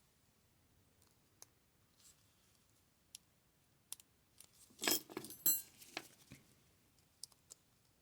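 Lock pick and tension tool working in the keyway of a Yale padlock: scattered faint metallic clicks, then a louder burst of scraping and clinking with a brief metallic ring about five seconds in.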